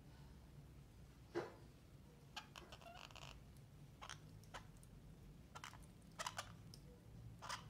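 Orange-fronted parakeets pecking at and cracking seeds and fruit, making faint, scattered clicks and crunches. They bunch together about two to three seconds in and again around six seconds.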